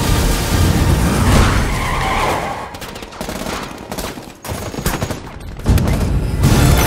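Heavy gunfire aimed at a car: a dense volley of shots that thins to a few scattered single shots partway through, then swells loud again near the end.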